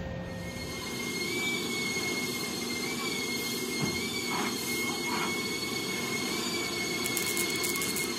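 A steady high-pitched whine with overtones, wavering slightly in pitch, over a low shop hum. Near the end comes about a second of crackle from a MIG welder striking an arc on the sheet-steel air dam.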